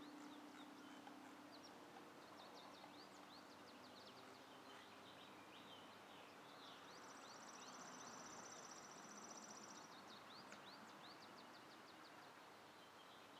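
Near silence outdoors, with faint scattered bird chirps throughout and a rapid, buzzy high trill for about three seconds in the middle.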